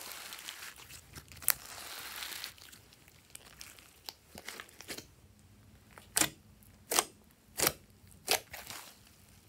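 Glossy slime being stretched, folded and squished by hand, crackling and popping with trapped air. A steady crackle in the first couple of seconds gives way to scattered clicks, then four sharp pops under a second apart in the last few seconds as fingers press into it.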